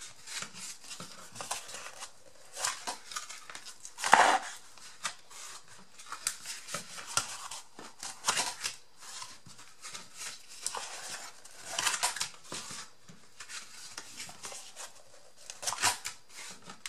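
Scissors snipping through paper or thin card, in many short cuts, mixed with handling rustles; the loudest crunch comes about four seconds in.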